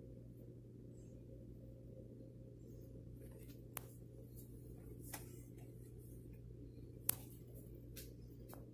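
Faint steady low hum with a few scattered sharp clicks in the second half, the loudest about seven seconds in.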